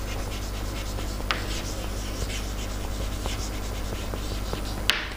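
Chalk writing on a chalkboard: a run of short scratchy strokes with a few sharp taps of the chalk, the loudest one near the end.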